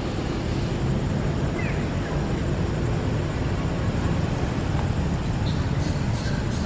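Steady low rumble of outdoor background noise, with a few faint high ticks near the end.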